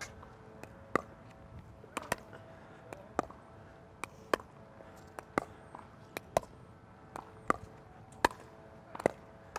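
Pickleball dink rally: the hollow plastic ball popping off the paddles and bouncing on the hard court, a sharp pop roughly every second, some in quick pairs of hit and bounce.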